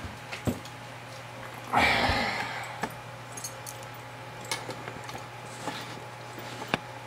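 Handling noise from a camera being repositioned: scattered small clicks and knocks, with one louder rustling scrape about two seconds in. A steady low hum runs underneath.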